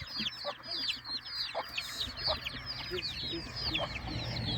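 Chickens calling: a dense run of short, high, falling cheeps in quick succession, with a few brief lower clucks among them.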